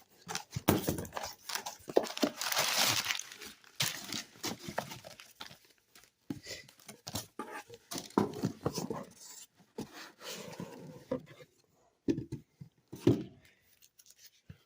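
Packaging and comic books being handled and unpacked from a shipping box: irregular crinkling and rustling with short pauses, loudest about two to three seconds in.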